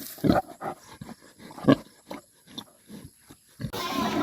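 A contented pig grunting: short low grunts, about one or two a second, the loudest a little before the middle. Near the end a denser, noisier sound takes over.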